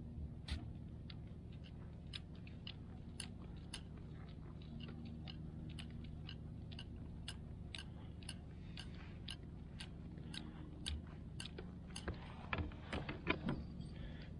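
Scattered light clicks and taps of fishing tackle being handled on a kayak, coming thicker and louder near the end, over a faint low steady hum.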